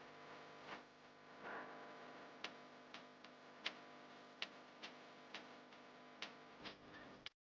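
Faint room tone with a low steady hum, broken by about a dozen short, sharp ticks at irregular spacing. The sound cuts off abruptly near the end.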